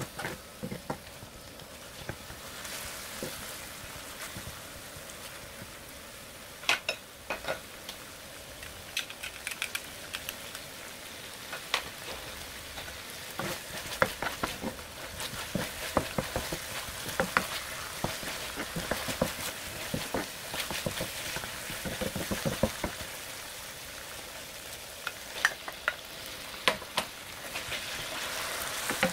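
Sliced sausage and green onion frying in oil in a nonstick pan: a steady sizzle. Sharp clicks and scrapes come throughout as a wooden spatula stirs the food against the pan.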